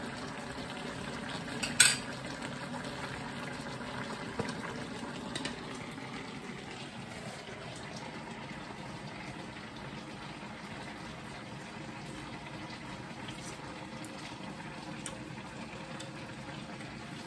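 A pan of mussels simmering on the stove, bubbling steadily, with a sharp clatter of a utensil or shell against the pan about two seconds in and a lighter knock a little later.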